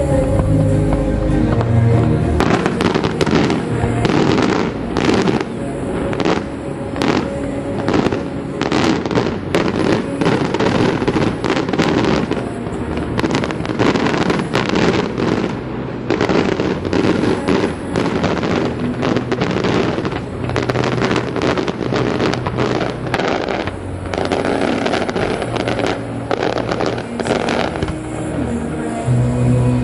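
Fireworks display: a dense, rapid run of bangs and crackling reports, many in quick succession, starting about two seconds in and easing off near the end.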